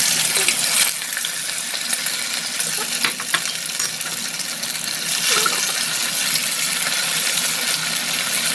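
Marinated chicken breast strips frying in hot oil in a nonstick pan: a loud, steady sizzle of hard-bubbling oil, with a few sharp clicks between about one and four seconds in.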